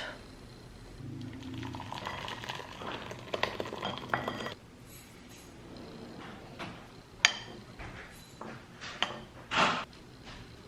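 Kitchen clatter of dishes and metal utensils: a run of light clinks and scrapes, then a few separate sharp clinks and knocks, the loudest about seven seconds in.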